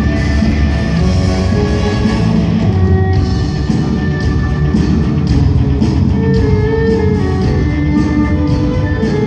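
Loud rock music with guitar and a steady drum beat, played for the ice show in the arena. The drum hits come through more sharply from about three seconds in.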